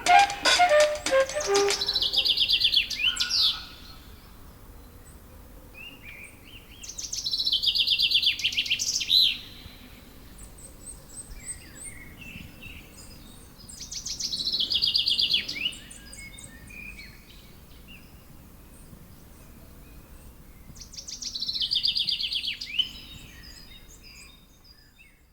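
Songbird song: a high trilling phrase repeated four times, about every six to seven seconds, each phrase lasting about three seconds, over a faint background.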